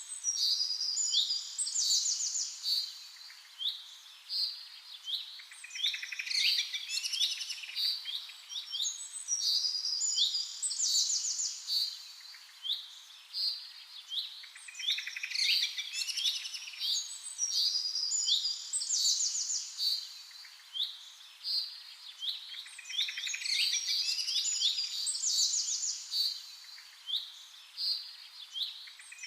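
Several songbirds chirping and singing at once, high quick notes and trills overlapping, swelling into busier bursts every four to five seconds.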